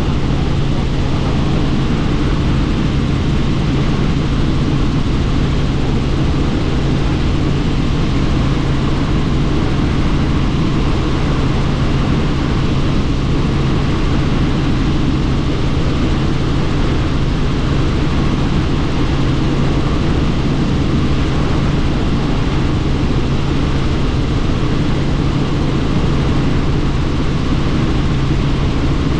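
Helicopter in flight, heard from inside the cabin with the doors off: a loud, steady rotor and engine drone with a strong low hum, under a thick rush of noise.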